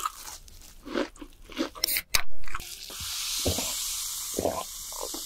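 Crunching bites into crisp toasted bread, a run of sharp crackly crunches, the loudest about two seconds in. This is followed by a steady hiss with a few soft low knocks.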